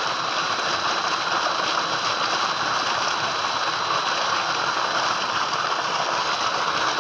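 Tubewell water gushing steadily from a pipe outlet into a concrete tank, with a thin, steady high-pitched tone running alongside.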